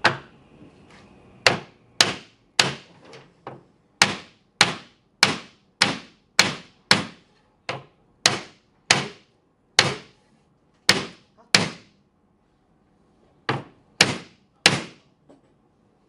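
Hammer blows on wood, about twenty sharp strikes at roughly one every half second to a second, with a short pause near the end: driving the end of a panel down into its frame joint.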